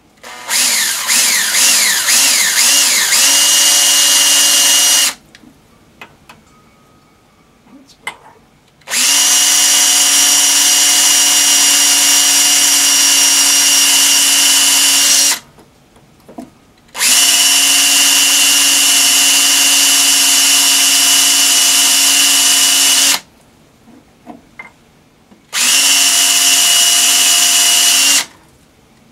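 Handheld power drill boring a tap-drill hole for a 4 mm screw into the cast-iron table of a Bridgeport milling machine. It runs in four steady whining bursts of a few seconds each, with short pauses between them, and the first burst rises in pitch as the drill spins up.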